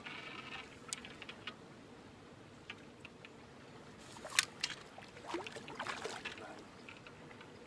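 A hooked fish splashing and thrashing at the water's surface as it is drawn towards a landing net, with a cluster of splashes between about five and six and a half seconds in. Sharp clicks and knocks from the fishing tackle come before it, the loudest a single sharp click about four and a half seconds in.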